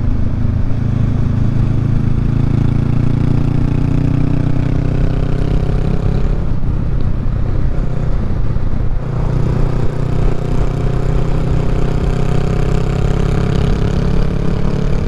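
Honda Rebel 500's parallel-twin engine running under throttle at road speed, its note slowly rising. About nine seconds in the note wavers and dips briefly, then climbs again.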